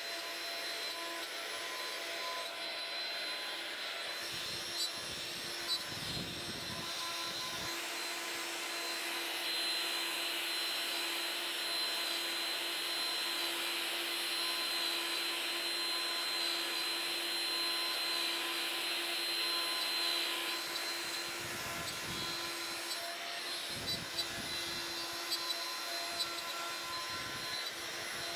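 CNC router spindle cutting wood while a vacuum cleaner pulls dust up through the machine's skirted dust shoe: a steady whine over a rush of air, with a louder hiss from about ten to twenty seconds in and a few small clicks.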